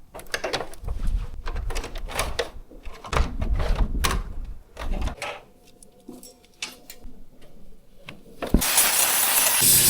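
Clatter and knocks of equipment being handled. Near the end, a cleaning machine starts suddenly with a loud steady hiss over a low motor hum.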